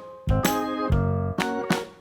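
Instrumental background music: a run of struck keyboard-like notes over a bass line.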